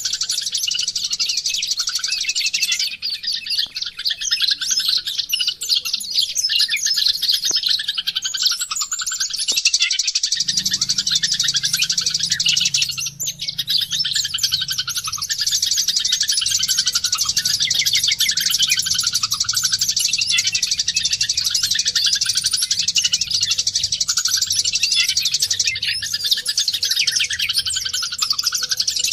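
White-eye (pleci, Zosterops) singing a long, fast stream of high twittering chirps and warbles, barely pausing except for a brief break about thirteen seconds in.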